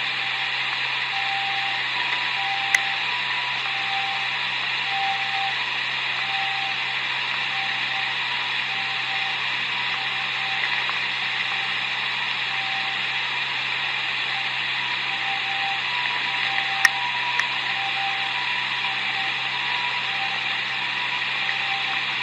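Distant Japanese ambulance siren: a faint two-tone 'pee-poh', swapping back and forth between a higher and a lower pitch, under a loud steady hiss. Two sharp clicks, one about three seconds in and one about seventeen seconds in.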